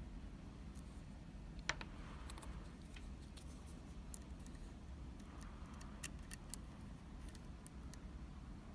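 Faint, scattered metallic ticks and light scraping of lock picks and a tension tool working the pins inside a Sargent Keso mortise lock cylinder, with one sharper click about two seconds in and a few more near the middle, over a low steady background hum.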